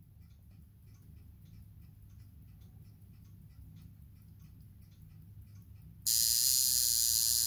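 Poljot mechanical alarm wristwatch (caliber 2612.1) ticking faintly and evenly, about five ticks a second. About six seconds in, its alarm goes off suddenly as a loud, steady, high-pitched buzz.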